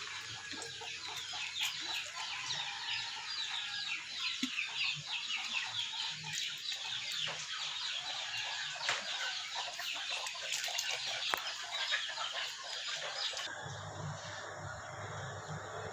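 Chickens clucking and chirping in a continuous busy chatter, which stops abruptly near the end.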